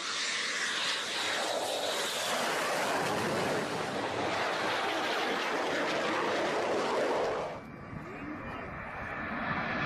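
Military jet aircraft passing low overhead: a loud, steady jet roar that cuts off suddenly about two seconds before the end, leaving a quieter rushing noise that slowly grows.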